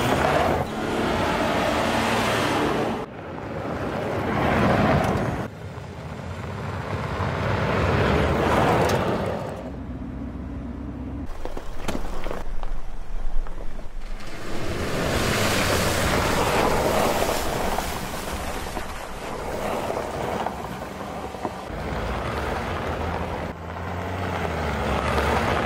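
Mercedes-Benz X350d pickup's V6 turbodiesel and its tyres on a gravel track, heard across several shots: repeated drive-bys that swell and fade, with the engine note climbing as it accelerates.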